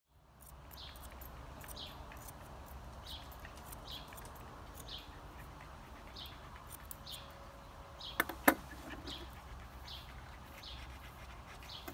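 A bird calling over and over, a short high chirp repeated about every three-quarters of a second, over a steady low rumble. About eight seconds in come two sharp clicks close together.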